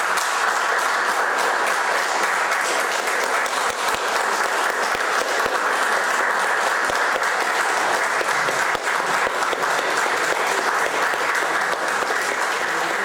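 Audience applauding: dense, steady clapping that eases off a little near the end.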